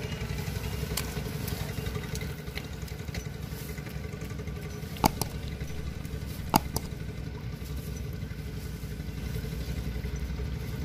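A steady low engine rumble runs throughout. Two sharp clicks come about halfway through, a second and a half apart.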